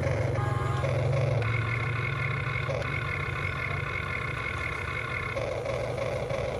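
Remote-control toy excavator's small electric motors whining in stretches of a few seconds as the boom and bucket move, over a steady low buzzing hum.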